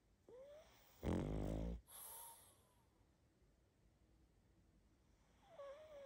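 Sleeping pug snoring: one loud, low, rattling snore about a second in, between thin whistling nasal breaths. Another whistling breath comes near the end.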